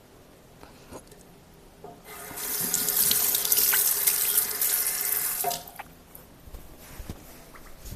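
Water tap running into a sink for about three and a half seconds, starting about two seconds in, then shut off.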